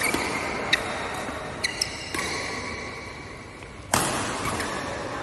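Sounds of a badminton doubles rally: sharp cracks of rackets striking the shuttlecock, the loudest about four seconds in, and short squeaks of shoes on the court floor.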